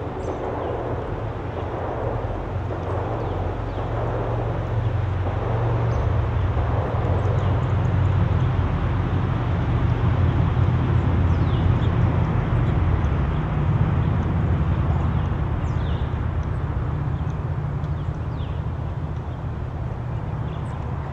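A steady low rumble that swells through the middle and eases off again, with a few faint, short, high chirps from small birds.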